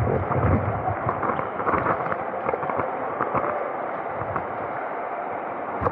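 Steady rush of water with splashing as people wade through a shallow water-park pool, with a few low thumps near the start.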